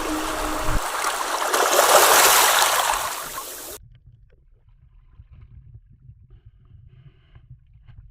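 Sea water rushing, swelling to a peak and then cut off abruptly about four seconds in; after that only a faint low rumble with a few scattered faint clicks.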